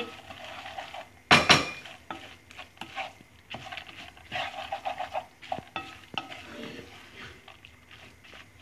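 Wooden spatula stirring and scraping sprouted moth beans in a metal pot, with one loud clank about a second and a half in, then irregular scraping.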